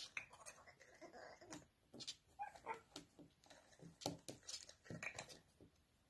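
African grey parrot playing with a small plastic-and-metal desk toy: a string of quiet, irregular clicks and taps from its beak and a plastic piece knocking against the toy's rod and ball, thinning out near the end.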